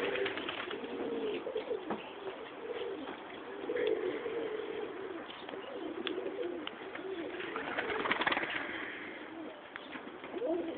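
Several domestic tumbler pigeons cooing continuously, their low calls overlapping. There are a few sharp clicks and a brief rustling flurry about eight seconds in.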